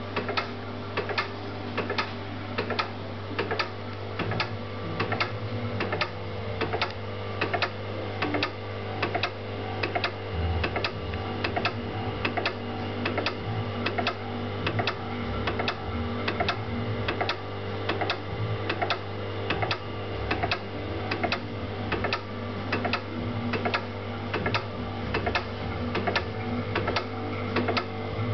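Laboratory hyperbaric pressure chamber equipment running: a steady electrical hum with a regular, rhythmic mechanical clicking that keeps on without a break.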